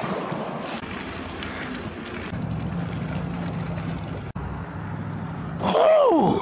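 Steady wind and road noise from riding a bicycle along a paved street, with a low steady hum through the middle. Just before the end comes a short, louder sound whose pitch rises and then falls sharply.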